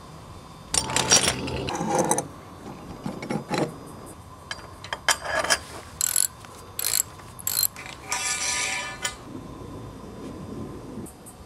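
Steel pipes and clamp fittings of a pipe frame being put together: a series of separate sharp metallic knocks and clinks, with a quick ratcheting rattle about eight seconds in.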